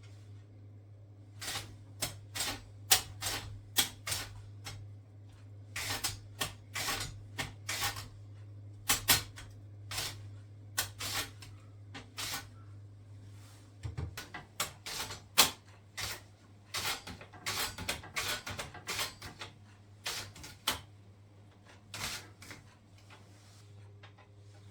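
A long run of irregular sharp clicks and knocks, some close together and some spaced out, over a steady low hum.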